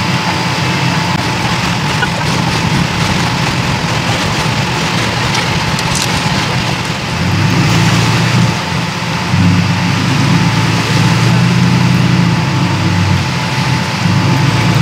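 Pickup truck engine running at a steady idle, then pulling harder in two louder stretches past the middle as the truck hauls a boat on its trailer up the ramp out of the water.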